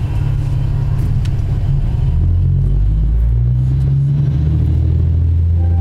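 Diesel railcar engine running, heard from inside the passenger cabin: a low drone that shifts in pitch a few times.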